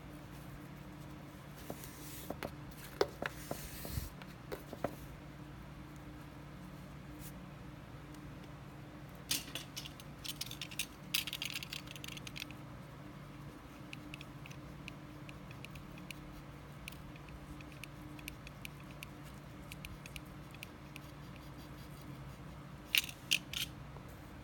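Close-up handling of a paracord lure: scattered rustles and clicks, then a crackling scrape lasting about three seconds near the middle as a snap-off utility knife blade trims the nylon paracord, with a few sharp clicks near the end. A low steady hum sits underneath.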